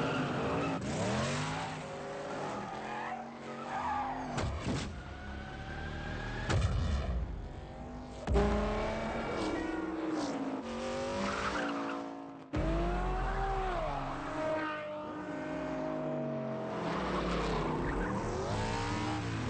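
V8 muscle car engine, a Plymouth Road Runner, revving hard and accelerating again and again, with tyres squealing and skidding. The pitch rises and falls with each gear and throttle change, and the sound cuts off abruptly several times.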